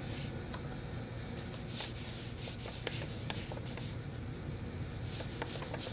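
Small paintbrush making short marks on watercolour paper: faint, scattered light scratches of the brush tip over a low steady room hum.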